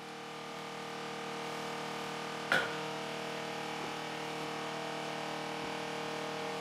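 Steady electrical hum of running workshop equipment, with a buzzy edge. A single sharp metallic click comes about two and a half seconds in.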